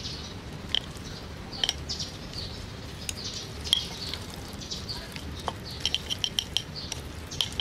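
Chopsticks tossing sauced noodles in a ceramic bowl, clicking and scraping against the bowl's side in irregular taps that come quicker about six seconds in.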